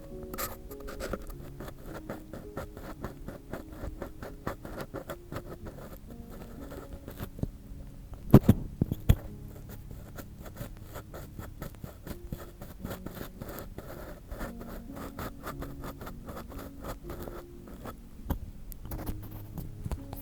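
Ear pick scraping and scratching inside a binaural microphone's ear, a dense run of small rapid scratches and clicks, with two loud bumps about eight seconds in.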